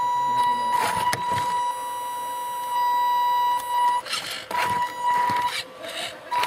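Steady high-pitched whine of a radio-controlled model truck's electric drive, cutting out twice for about half a second, with a few short scraping crackles.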